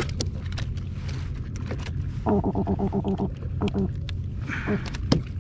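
Sea robin barking out of the water: one pulsed, buzzy croak about a second long a couple of seconds in, then two short croaks.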